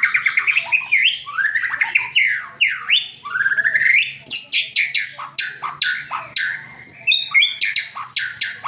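White-rumped shama singing a loud, fast, non-stop song of varied phrases: rapid trills, rising and falling sweeping whistles and quick high notes. This is the energetic, high-speed song that keepers play to prompt their own caged shamas to sing.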